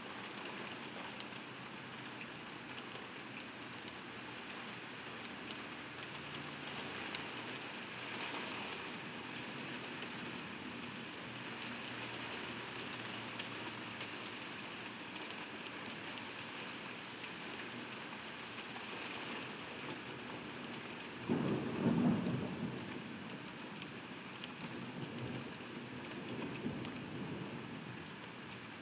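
Steady heavy rain falling on window glass, heard from inside behind the pane. About three quarters of the way through a thunderclap starts suddenly and rumbles for a couple of seconds, the loudest sound here, with a fainter rumble of thunder following near the end.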